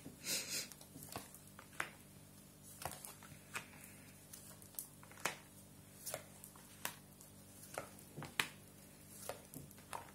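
Tarot cards being dealt one at a time onto a woven cloth: a dozen or so soft taps at irregular intervals, with a brief papery rustle about half a second in.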